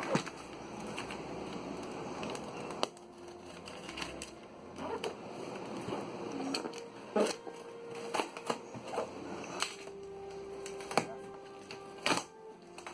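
A cardboard shipping box being cut open with a box cutter and handled: scraping and rustling of cardboard, tape and paper, with sharp clicks and knocks from the cutter and the box against the desk.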